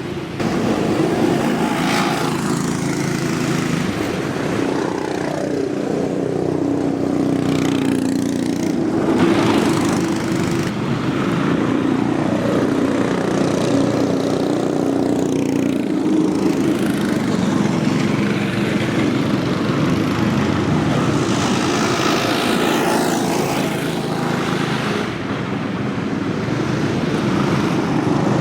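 Cyclekarts' small engines running as the karts lap the track, the engine pitch rising and falling repeatedly as karts speed up, slow and pass by.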